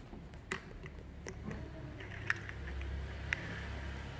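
Small hands pressing and patting a lump of Play-Doh against a plastic tub lid on a table: soft handling sounds with about four light taps roughly a second apart.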